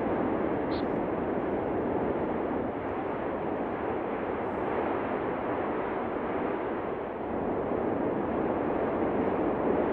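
La Palma volcano erupting, lava fountaining from its vent: a continuous, steady rushing noise.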